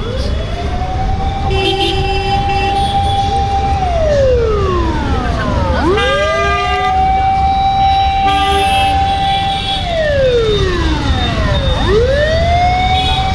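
A siren wailing in long cycles, each rising quickly, holding a steady pitch for about three seconds and then sliding down slowly, starting over roughly every six seconds. Under it runs a steady low rumble of a moving motorcycle and road noise.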